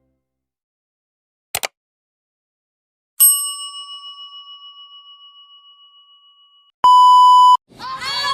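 A string of edited-in sound effects: two quick double clicks, then a single bell-like ding that rings and fades with a slight wobble over about three seconds, then a short steady electronic beep. Music comes in near the end.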